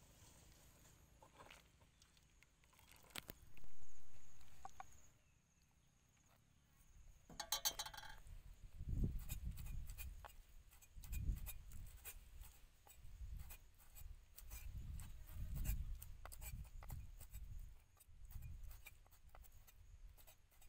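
A cleaver chopping boiled pork intestines on a thick wooden chopping board: repeated dull thuds with sharp knife clicks, roughly one to two a second, starting a little before halfway in. Earlier, a few faint clinks of a metal ladle in an aluminium pot.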